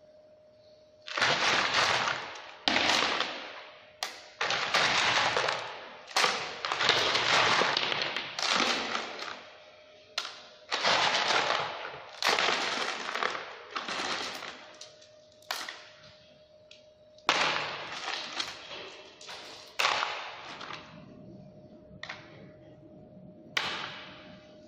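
Handfuls of hard bait pellets poured and clattering into a plastic crate, about fifteen pours in a row, each a short rattle that dies away.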